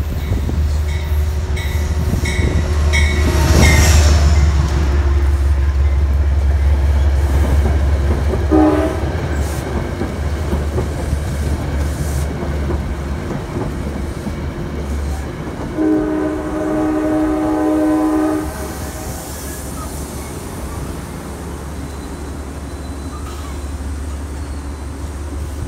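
A Metro-North GE Genesis P32AC-DM diesel locomotive passing close with a heavy engine rumble and its bell ringing about twice a second, loudest about four seconds in, followed by its passenger coaches clattering over the rails as the rumble fades. A horn sounds briefly about eight seconds in and again for about two seconds around sixteen seconds in.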